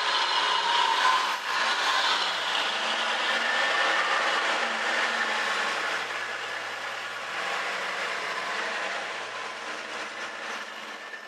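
A truck running by with engine and road noise, loudest at the start and slowly fading away.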